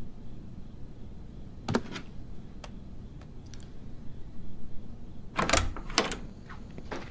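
A few light clicks, then a door's latch and handle clicking loudly twice, with a low thump, as the door is opened.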